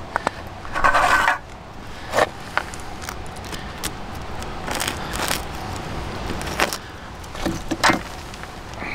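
Handling sounds of a Swiss Army knife cutting a crisp-crusted small pizza on a wooden table. There is a short scraping rasp about a second in, then several sharp clicks and knocks of the knife and pizza against the boards.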